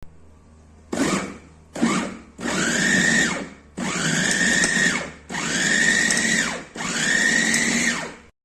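Gaabor 2L electric meat grinder/food processor motor run in pulses: two short blips, then four runs of about a second and a half each. Each run spins up to a steady high whine, with chopping noise, and winds down between pulses.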